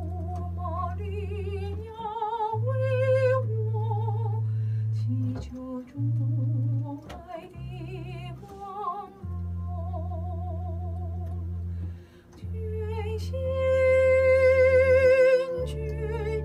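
A woman singing a Chinese Catholic hymn to the Virgin Mary with a wide vibrato, accompanying herself on a keyboard that holds sustained low chords under the melody. Near the end she holds one long, louder note.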